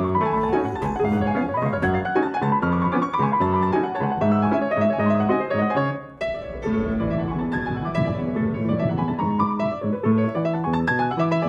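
Fast, busy piano playing with dense runs of notes. It breaks off for a moment about six seconds in, then carries on.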